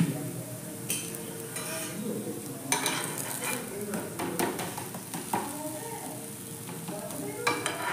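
Thalipeeth flatbread sizzling on a flat griddle while a metal spatula scrapes and taps against it. Hands pat dough flat on a plastic sheet at the start.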